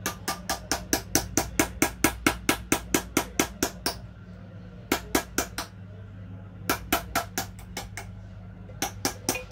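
Small hammer tapping a chisel into brass in hand engraving: quick sharp metallic taps, about four or five a second, in runs broken by short pauses, over a steady low hum.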